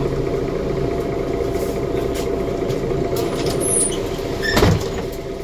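Mercedes OM457LA diesel engine of a Mercedes-Benz Conecto G articulated city bus running at steady revs, heard from inside the passenger cabin as a steady hum. About four and a half seconds in there is a single short, sharp thump.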